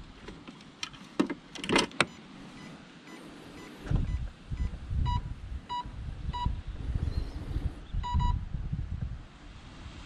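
Short electronic beeps from a remote-control bait boat's handset. A few faint beeps are followed by louder ones a little over half a second apart, then a quick double beep near the end. A few sharp clicks come in the first two seconds, and a low rumble runs underneath.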